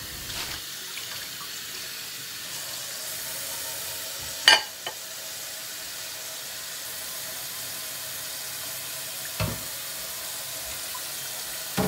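Kitchen faucet running a steady stream into a stainless-steel sink while dishes are rinsed. A sharp knock about four and a half seconds in is the loudest sound, with a lighter one near nine and a half seconds and another near the end.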